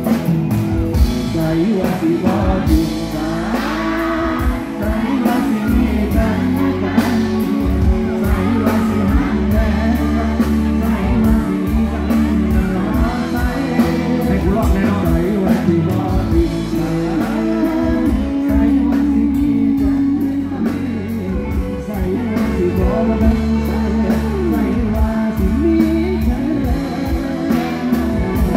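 Live band music with a male vocalist singing into a microphone, backed by electric guitar, bass and drums through the stage PA.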